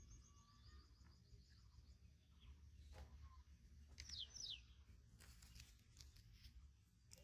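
Quiet outdoor ambience with faint bird calls: a short rapid trill at the start and two quick falling whistles about four seconds in, with a few faint clicks over a low rumble.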